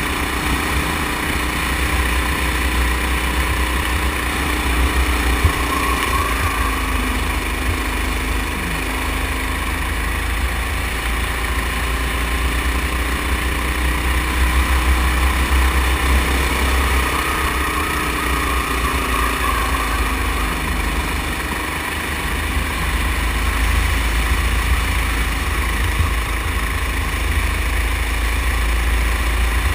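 Rental go-kart's small engine running at speed on the track, its pitch rising and falling as the driver lifts and accelerates through the corners, over a heavy low rumble.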